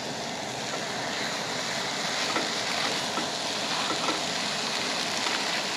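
Raw ground-beef meatloaf burger patties sizzling in a hot non-stick fry pan on a propane camp stove: a steady frying hiss with small crackles, growing a little louder over the first couple of seconds as the second patty goes in.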